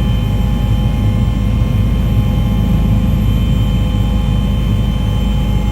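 A loud, steady engine drone with a low rumble and several constant whining tones over it, cutting off suddenly at the end.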